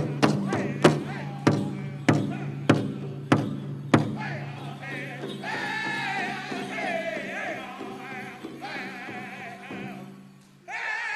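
Powwow drum group singing a chicken dance song, the big drum struck in a steady beat of a little under two strikes a second. The drumming stops about four seconds in while the singers' high voices carry on alone. Near the end the sound drops away briefly before a loud voice comes back in.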